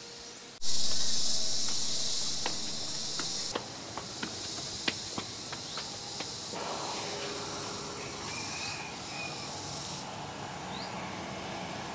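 Insects buzzing in a loud high steady drone that starts suddenly less than a second in and eases off after a few seconds, with a scatter of sharp clicks over the next few seconds and a few faint short chirps near the end.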